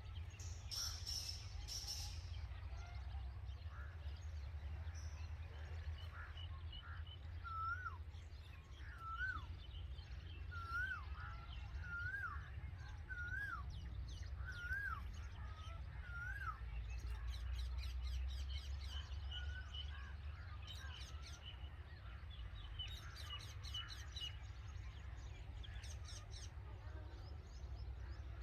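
Red-vented bulbul calling: a run of about eight short hooked notes, each rising then dropping. They are followed by bursts of rapid high chirps, all over a steady low rumble.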